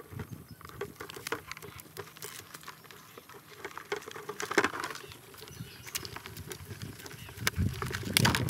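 Irregular clicking and scratching as live crabs are worked free of a nylon net and their claws and legs scrabble against the net and a basin, with a louder clatter near the end.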